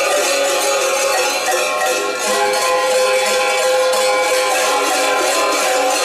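Large metal bells worn on the chest and waist of costumed mummers, clanging continuously and irregularly as they walk, many bells ringing over one another at once.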